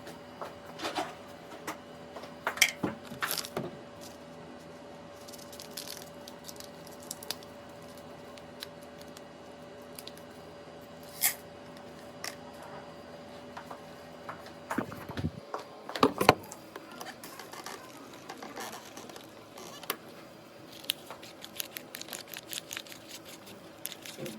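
Scattered clicks, taps and light handling noises, with a cluster of louder knocks about two to three seconds in and again around fifteen to sixteen seconds, and a quick run of small ticks near the end, over a steady faint hum.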